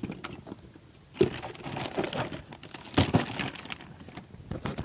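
Packaging rustling and crinkling as a new strut is unpacked, with irregular handling noise and a few sharp knocks, the loudest about a second in and about three seconds in.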